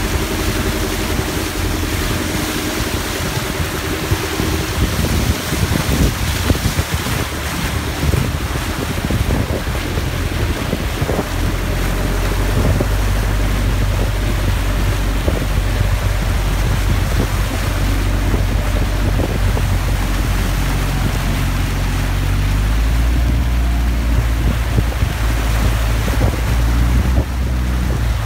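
Floodwater rushing and splashing as a bus ploughs through a deeply flooded road, churning up a bow wave along its side. A steady low rumble sits underneath from about eleven seconds in.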